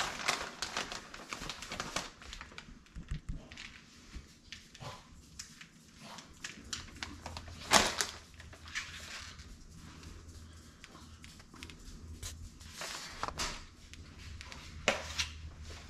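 Food-prep handling noises: a plastic shredded-cheese bag rustling and paper plates being moved on a stone counter, with scattered light clicks. A sharper knock comes about eight seconds in and another near the end.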